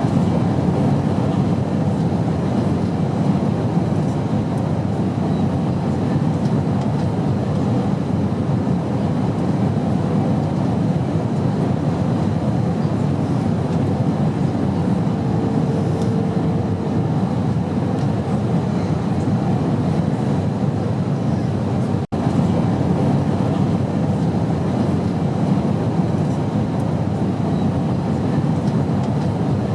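Steady rushing drone of an airliner's cabin in flight, from the engines and the airflow. A faint steady tone sounds briefly about halfway through, and the sound breaks off for an instant about two-thirds of the way through.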